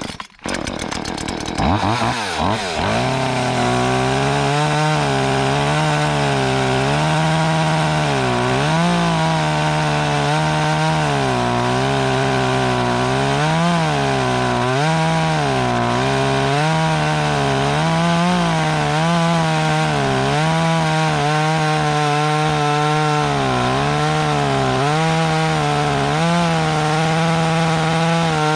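Echo 2500 25cc chainsaw starting up in the first seconds, revving up, then held at high throttle cutting through a thick log of dead hardwood. Its pitch keeps dipping and recovering as the chain loads and clears in the wood.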